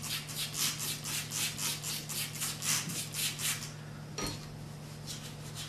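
Trigger spray bottle of carpet stain spotter squeezed rapidly, about four short hissing squirts a second onto the carpet. The squirts stop a little over halfway through, followed by a single click.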